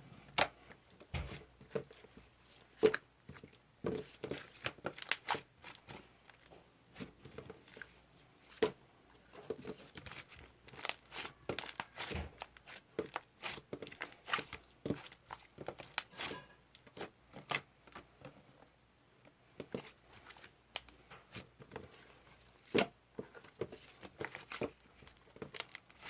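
Homemade slime, gone stiff after a little cheese jelly was mixed in, being squeezed and stretched by hand: irregular sharp clicks and pops, some louder snaps among quieter crackling.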